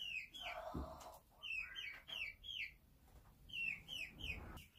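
Baby chicks peeping: short high chirps that each slide downward, coming in quick runs of three to five with pauses between the runs.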